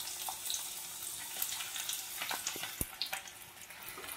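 Chopped onion frying in hot oil with dried red chillies and bay leaves: a steady sizzle dotted with small crackles and pops.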